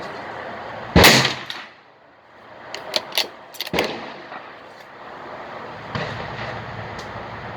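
A .22 WMR Marlin 983T rifle fires once about a second in, a loud, sharp crack with a short ringing tail. Between about 2.7 and 3.6 s come several sharp clicks, and a second, much quieter crack follows near 3.8 s.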